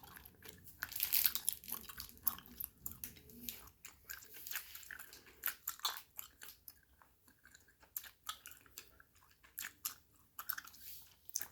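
A person chewing close to the microphone: a run of irregular wet clicks and crunches from the mouth.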